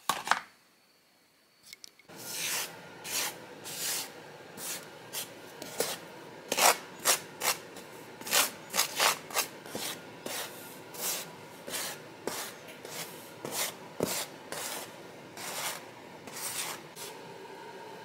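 Hands rubbing and sweeping flour across a tray to coat fish fillets for frying: a run of irregular short rasping strokes, about one or two a second, starting about two seconds in.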